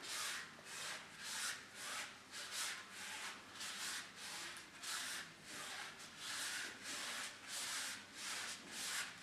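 Hands rubbing along the inside of a bicycle tyre, a rhythmic brushing at about two strokes a second, feeling for sharp objects or glass after a puncture.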